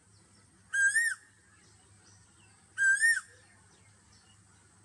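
A short whistled call that rises and then drops in pitch, repeated three times about two seconds apart, over a faint steady hum.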